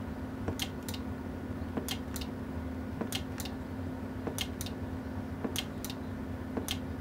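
CB linear amplifier's keying relay clicking in and out, a pair of sharp clicks about once a second, as the amp is keyed and unkeyed over a steady power-supply hum. The relay's contacts have just been burnished after it was sticking latched.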